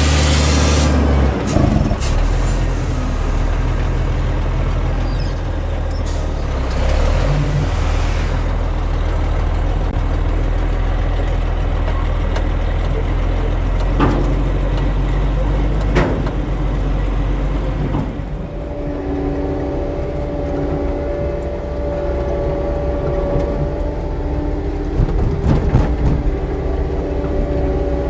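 Heavy diesel construction machinery running steadily, with a short burst of hissing air at the start and a couple of sharp knocks near the middle. About two-thirds through, a steady higher whine joins the engine.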